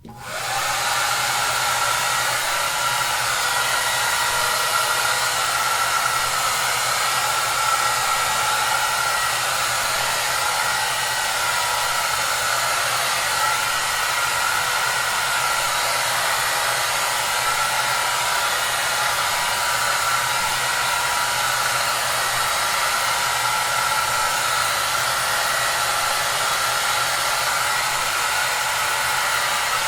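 Hair dryer running steadily: a constant rushing hiss with a faint steady whine and a low hum in it, coming in abruptly at the start and holding an even level throughout.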